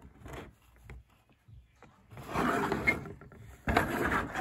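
Plastic model-kit sprue being handled and pushed across a sheet of cardboard: a few light taps, then two stretches of scraping rustle, one about two seconds in lasting about a second and a louder one near the end.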